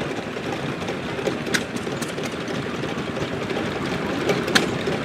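An engine running steadily, with a few sharp clicks.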